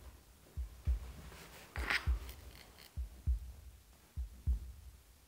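Slow heartbeat sound effect: deep paired thumps, about one double beat every 1.2 seconds. A short faint click sounds about two seconds in.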